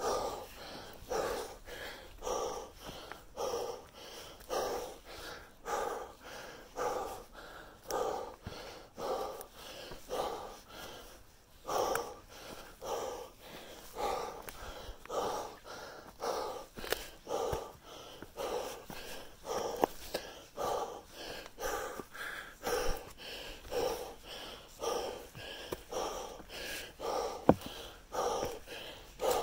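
Heavy, rhythmic breathing of a person climbing a steep rocky trail, about one breath every three-quarters of a second, the sound of hard exertion. A few sharp clicks break in.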